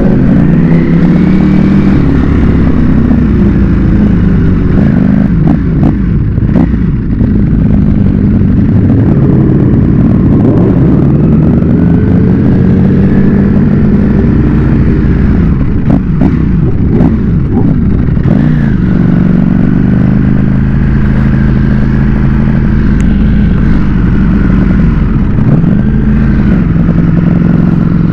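Red Ducati sportbike's engine and exhaust heard from the rider's seat, the revs climbing and dropping again and again as it pulls away and shifts through traffic. A few sharp crackles come about a fifth of the way in and again a little past halfway.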